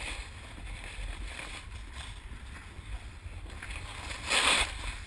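Snowboard sliding over snow: a steady low rumble with a hiss of snow under the board, and a short, louder spray of hiss a little over four seconds in.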